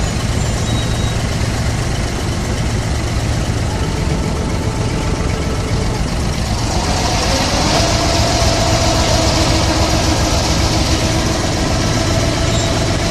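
Abra water taxi's diesel engine running at a steady low drone; about six and a half seconds in, a higher steady whine and hiss join it and hold until near the end.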